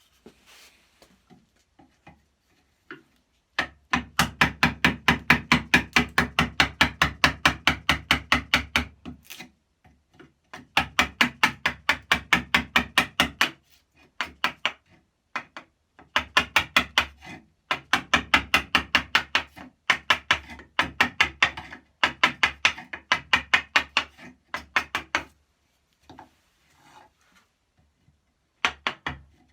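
Wood chisel being struck in quick, light, evenly spaced blows, about five or six a second, chopping waste out of a housing cut in wood. The blows come in runs of a few seconds with short pauses between.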